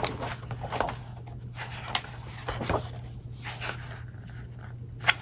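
Glossy pages of a souvenir picture book being turned and handled: scattered short paper rustles and slides, over a steady low hum.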